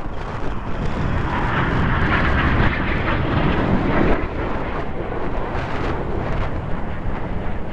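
Jet engine noise from Red Arrows BAE Hawk T1 display jets flying over. The noise swells from about a second in, is loudest around two to four seconds, then eases off as the jets move away.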